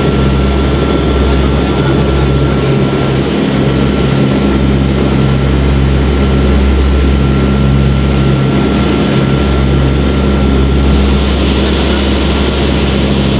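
Propeller engines of a turboprop military transport aircraft droning steadily in flight, heard from inside its cargo hold: a loud, unbroken engine and airflow noise with a constant low hum.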